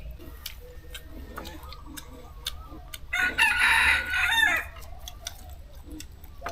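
Rooster crowing once, a loud call of about a second and a half starting about three seconds in.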